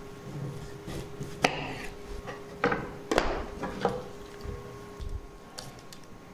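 Vegetable peeler scraping the skin off a bottle gourd on a wooden cutting board: several short scrapes and knocks, a second or so apart.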